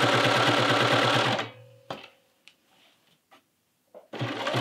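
Electric sewing machine stitching a knit neckband at a steady fast rate, stopping about a third of the way in. After a quiet pause with a few faint clicks, it starts stitching again near the end.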